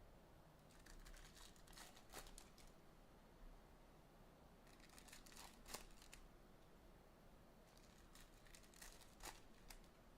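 Faint crinkling and tearing of trading card pack wrappers, in three short bouts of crackle.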